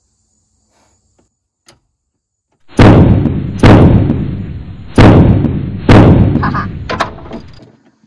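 Four heavy hammer blows on a ratchet handle, roughly a second apart, then a lighter knock, shocking loose a 3/4-inch bolt that is on really tight.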